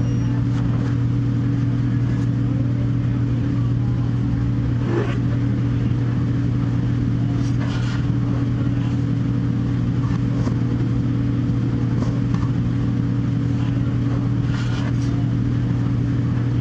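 Steady low machine hum of pizza-restaurant equipment, with a handful of light clatters and knocks scattered through it.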